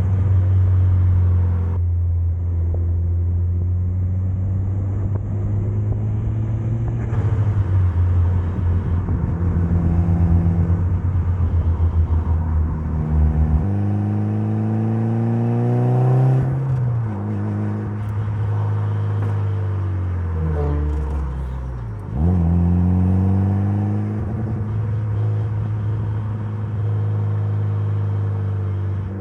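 Mitsubishi Lancer Evolution's turbocharged 4G63 inline-four running on the road. It holds a steady note for about half the time, climbs in pitch under acceleration, falls away to a low dip, then jumps sharply back up in revs and settles to a steady note again.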